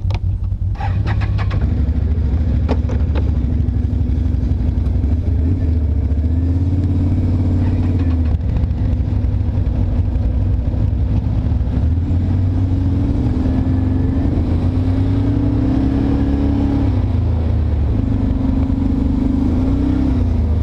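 Quad ATV's engine running under way, its pitch rising and falling a few times as the throttle changes, with a few clicks in the first couple of seconds.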